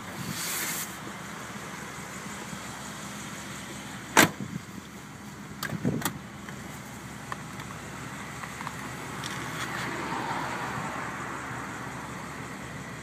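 Handling noises on a parked car: a brief hiss at the start, a sharp knock about four seconds in, two lighter clicks a couple of seconds later, and a swelling whoosh around ten seconds.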